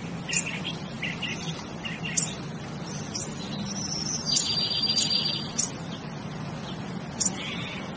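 Short high chirps every half second or so, then a sustained high trill lasting about a second a little past the middle, and more chirps near the end, over a low steady hum.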